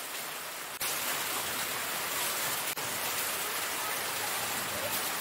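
Steady rain falling, an even hiss that gets a little louder about a second in.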